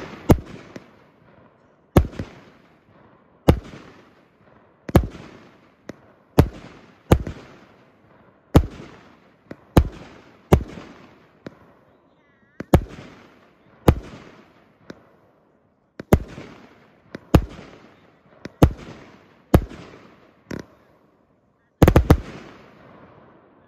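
A 200-gram consumer fireworks cake firing its shots: hard-hitting bangs from the aerial shells bursting, about one a second, each trailing off in a long echo, with a quick double bang near the end.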